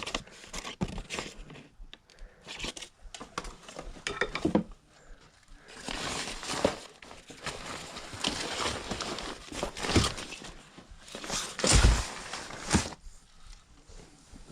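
Clothing and bags being rummaged through and handled: irregular rustling and crinkling, with a couple of louder thumps in the second half.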